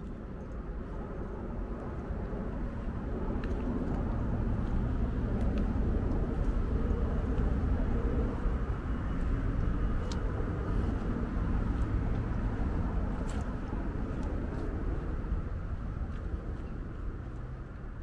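Low engine rumble of a passing vehicle, swelling over several seconds and then slowly fading away.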